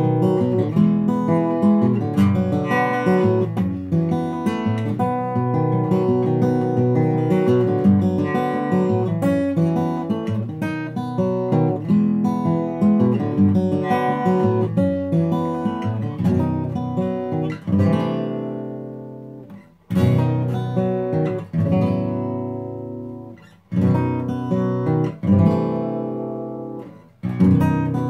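A Taylor Baritone-6 acoustic baritone guitar, tuned a fourth below standard (B to B), fingerpicked in a steady flowing pattern. About two-thirds of the way through the picking thins out into single chords left to ring and fade, each struck again after a brief dip.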